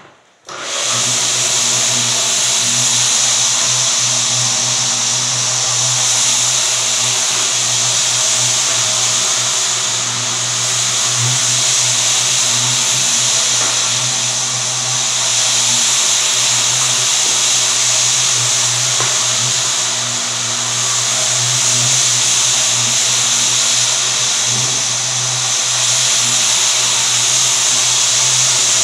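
Electric single-disc floor buffer running on a sanded hardwood floor during the final buffing pass. It comes on about half a second in, then runs steadily: a motor hum under a loud hiss from the pad on the wood.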